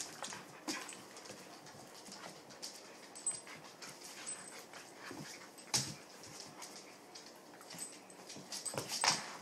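Two dogs play-wrestling on a wooden floor: scuffling and sharp clicks of claws and mouths, with occasional small whimpering noises. The loudest clicks come about six seconds in and again near the end.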